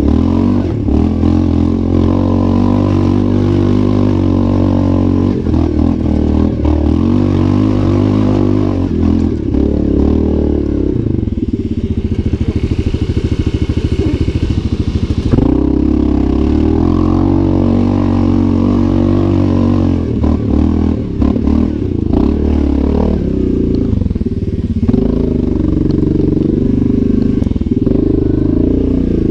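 Yamaha Grizzly 700 ATV's single-cylinder four-stroke engine running under load up a rough hill track. For a few seconds around the middle it drops to a lumpy idle, then picks up again and pulls on uphill.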